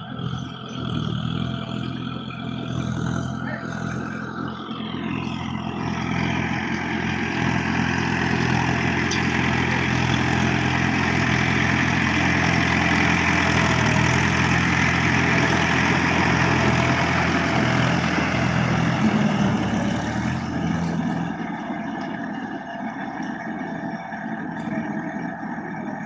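Tractor diesel engine running steadily as it drives through a flooded paddy field. It grows louder over the first few seconds and falls away again near the end.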